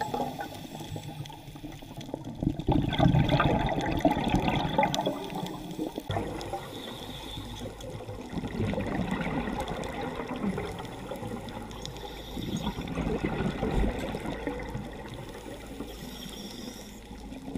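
Underwater bubbling and rushing from a scuba diver's exhaled regulator bubbles, swelling in surges a few seconds apart with quieter spells between.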